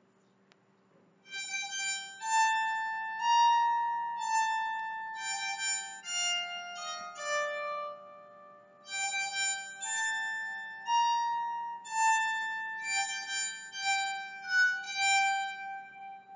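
Bowed psaltery played with a bow: a slow melody of held high notes that overlap as the strings ring on. It starts about a second in, eases off briefly near the middle and fades out near the end. A faint steady hum lies underneath.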